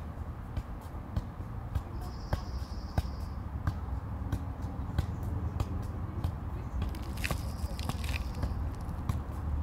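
Soccer ball being juggled: a run of short, sharp taps as the ball is kicked up again and again, about one to three a second.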